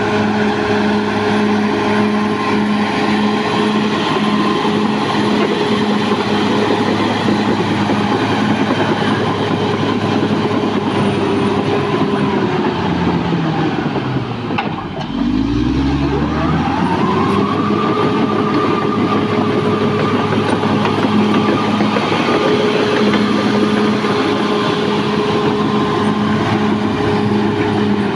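Caterpillar D6R bulldozer's diesel engine running steadily at high revs; about halfway through its pitch drops sharply and climbs back up within a couple of seconds.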